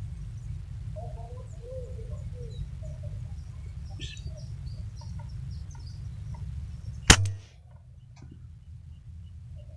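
A single shot from a bullpup air rifle firing a slug: one sharp crack about seven seconds in, the loudest sound here. Before it, a low steady rumble and a few short bird calls.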